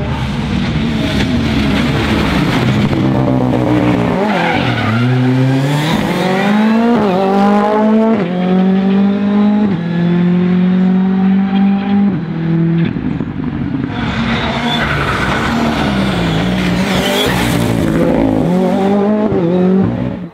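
Ford Fiesta R5 rally car's turbocharged 1.6-litre four-cylinder engine revving hard at speed, its pitch climbing and dropping back sharply at each gear change, several times over.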